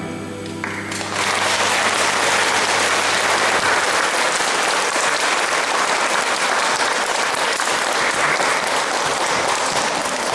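Audience applauding, the clapping swelling in about a second after the song's last note ends and then continuing steadily.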